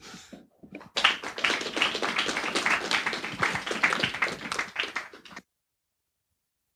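Small audience applauding with many hands clapping at once. The applause starts about a second in and cuts off suddenly near the end.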